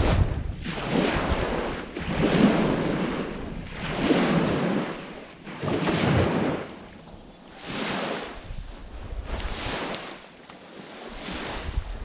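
Small lake waves breaking and washing up on a pebbly shore, surging and ebbing every couple of seconds. Wind buffets the microphone at the start and again near the end.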